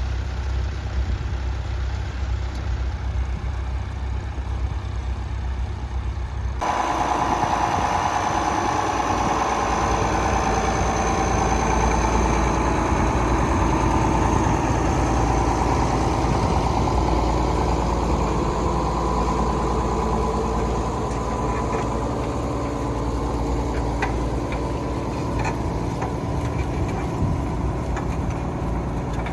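Tractor engine running steadily. About six and a half seconds in the sound changes abruptly to a louder engine note, with a steady high whine over it.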